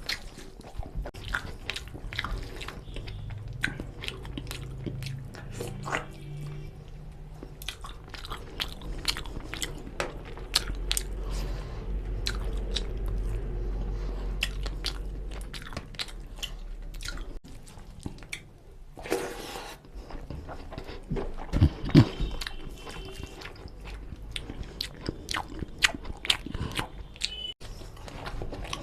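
Close-miked chewing and lip-smacking of a person eating chicken curry and rice by hand: a steady run of short wet clicks and smacks, with one louder low thump about three quarters of the way through.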